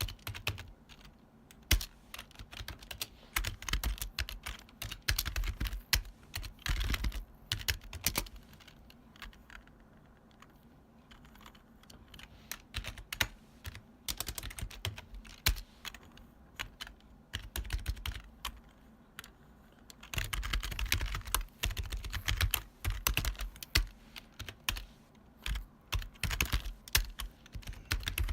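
Typing on a retro long-travel keyboard with a strong clacky sound: runs of rapid keystrokes broken by slower, sparser stretches, with the densest, loudest run in the last third.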